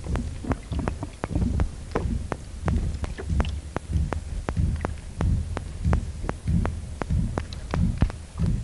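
Minke whale thump train recorded underwater: a long, regular series of low thumps, about three a second, with sharp clicks scattered through it.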